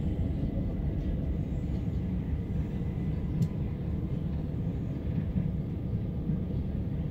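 Running noise inside a moving c2c electric passenger train: a steady low rumble, with one sharp click about three and a half seconds in.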